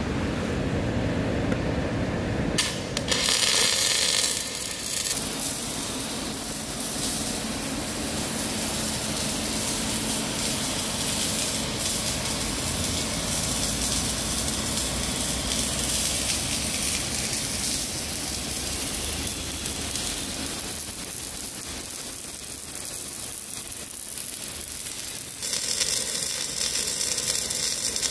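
MIG welding arc with metal-cored wire, crackling and hissing steadily as the weld is laid. It starts about two and a half seconds in, eases off for a few seconds near the end, then picks up again.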